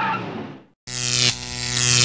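Sound effects: the tail of a tire-squeal effect fades out in the first moment. After a brief break, a loud electric buzz sets in, a steady hum with hiss over it, jumping in level once or twice.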